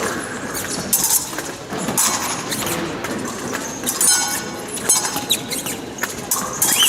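Épée bout in progress: fencers' shoes squeak and stamp on the piste, and the blades click and clink together. Near the end a steady high electronic beep starts, the scoring apparatus signalling a touch.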